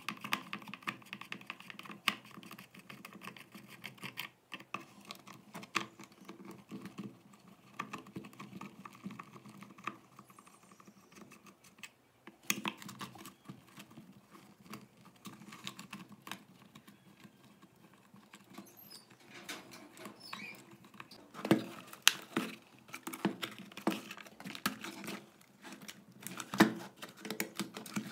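Screwdriver turning screws out of a tire inflator's plastic casing, with the case handled on a wooden table: a continual run of small clicks, scrapes and taps, and a few louder knocks in the second half.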